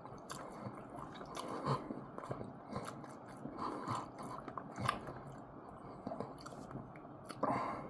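A person chewing and biting food close to the microphone, with small wet mouth clicks and smacks. A short, louder mouth sound comes near the end.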